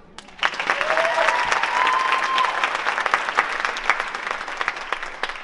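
Audience applauding, with a high held cheer rising over the clapping about a second in. The clapping starts suddenly after a short lull and thins out near the end.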